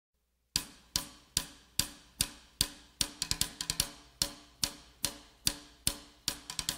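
Music intro: a steady drum beat of about two hits a second, with quicker flurries of hits twice.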